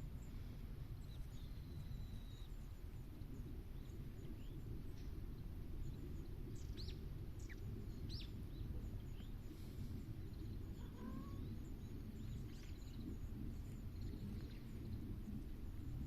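Outdoor rural ambience: a steady low background rumble with scattered short bird chirps, mostly in the middle, and a faint rising call about eleven seconds in.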